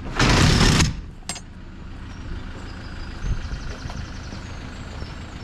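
Self-built camper van's engine idling steadily. It has been left running because it won't restart on its weak battery. A short, loud rushing noise comes just under a second in.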